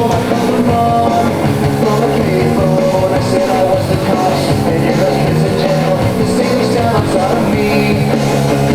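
Loud rock music with guitar, playing steadily as a soundtrack.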